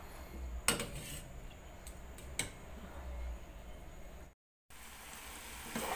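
A metal ladle knocking lightly against a stainless-steel soup pot a few times, over a faint low rumble. The sound drops out for a moment near the end.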